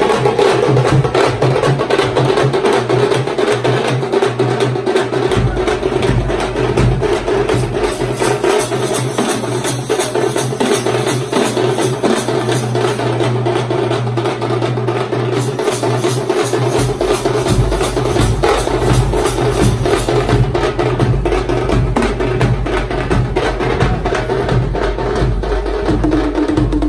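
A troupe of tamate, large Kannada frame drums, beaten together with sticks in a fast, dense, continuous rhythm.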